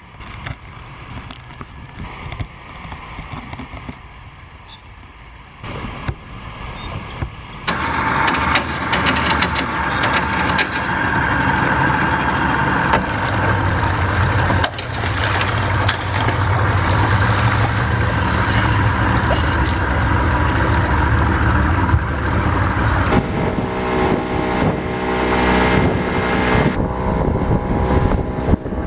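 An engine running steadily, much louder from about eight seconds in.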